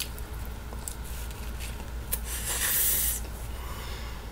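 A man chewing a taco close to the microphone, with a few small clicks and a short hissing noise about two and a half seconds in, over a steady low hum.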